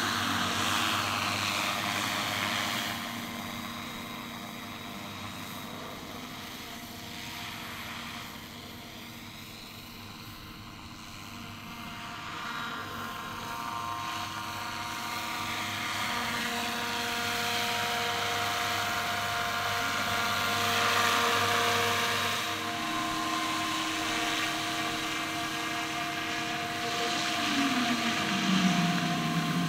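Radio-controlled scale model helicopter (a UH-1N / Bell 412 twin Huey) flying with its rotor and drive running steadily, its pitch sweeping and its level rising and falling as it moves close and away.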